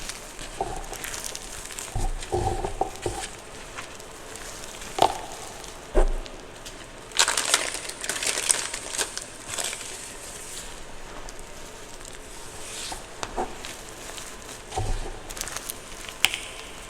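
Blocks of gym chalk being crushed: irregular crunches and crackles, with a dense stretch of crunching about seven seconds in.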